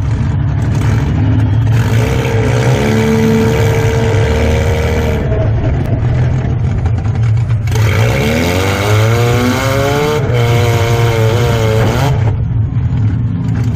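A demolition derby car's engine revving hard and easing off, heard from inside its stripped-out cabin. The pitch climbs twice, a few seconds in and again a little past halfway.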